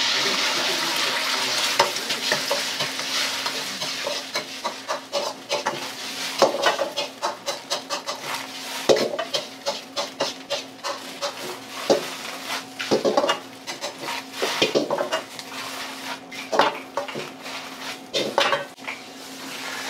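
Beaten egg sizzling loudly as it hits hot oil in a wok, the sizzle easing after about two seconds. Then a metal ladle scraping and clanking against the wok again and again as fried rice is stirred and tossed, over a steady low hum.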